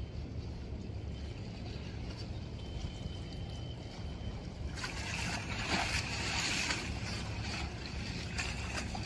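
Steady low engine rumble of a vessel in the harbour. About five seconds in, a rushing hiss with uneven gusts joins it.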